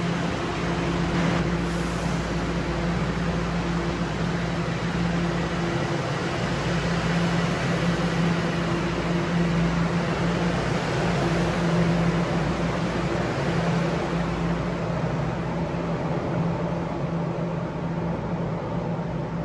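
Bombardier Toronto Rocket subway train at a platform, its equipment giving a steady low hum over a broad rumble. The sound eases off over the last few seconds as the train pulls away.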